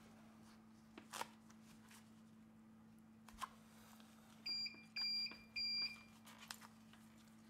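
Playing cards clicking and scraping now and then as they are slid and flexed between a phone's display and frame to cut the screen adhesive. Near the middle come three short electronic beeps, about half a second apart, which are the loudest sounds.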